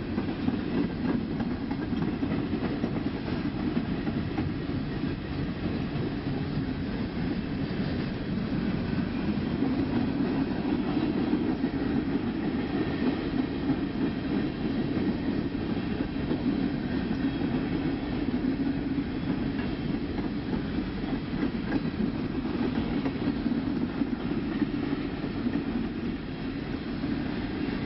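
Empty coal hopper cars rolling past in a steady rumble, with a continuous clatter of wheels over the rail joints.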